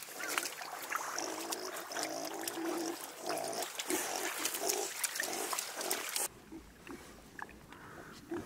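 Piglets grunting repeatedly with wet splashing as they root with their snouts in a muddy puddle. About six seconds in, the sound drops suddenly to faint grunting further off.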